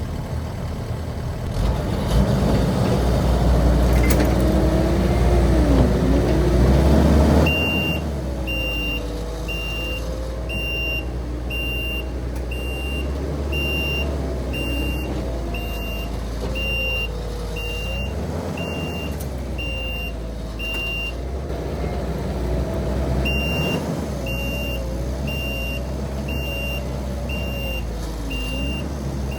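Heavy machine engines working hard, their pitch rising and falling as the tracked skid steer tries to back out of quicksand with another machine helping, loudest in the first several seconds. From about a quarter of the way in a backup alarm beeps about once a second, stops briefly and starts again.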